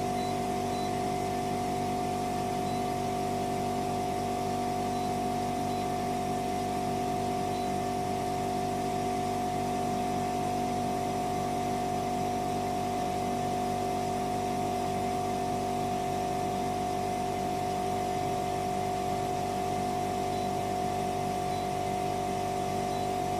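Air-to-water heat pump running steadily: an even mechanical hum with several held tones, the highest and loudest a steady mid-pitched whine.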